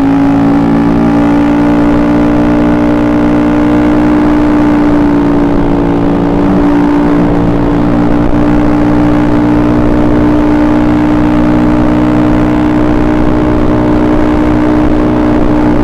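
Small single-cylinder four-stroke scooter engine of a carbureted Honda BeAT, revved up and held at a steady high rev.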